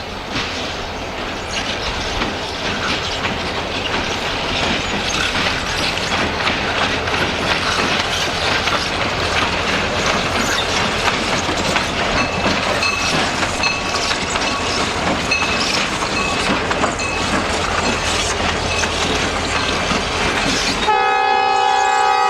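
Freight train rolling past close by, its wheels clacking over the rail joints. Near the end a train horn sounds a steady chord for about two seconds, and the low rolling noise drops away under it.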